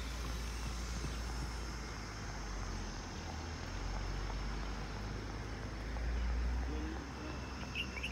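Low rumble of wind on the microphone, swelling and easing, over a faint steady high-pitched hum, with a few faint chirps near the end.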